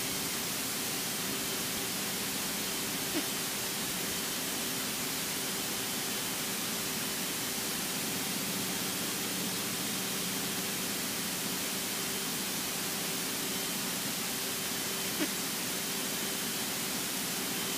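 Steady, even hiss in the cockpit audio of a Cessna 172 in flight, with a faint steady hum under it and two soft clicks, one a few seconds in and one near the end.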